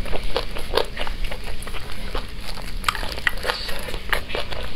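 Close-miked eating of saucy chicken drumsticks: wet chewing, lip smacks and mouth clicks in a quick, irregular series.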